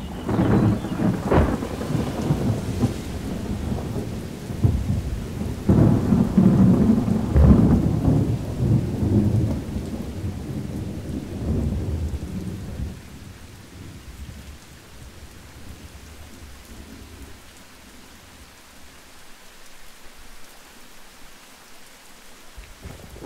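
Thunderstorm: rolling thunder over steady rain. The loudest claps come right at the start and again about six to eight seconds in. After about thirteen seconds the thunder stops and only fainter rain goes on.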